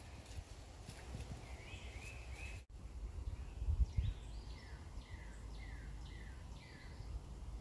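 A bird calling in the background: a short trill, then a run of about six short falling chirps, roughly two a second. A brief low rumble sounds just before the chirps start.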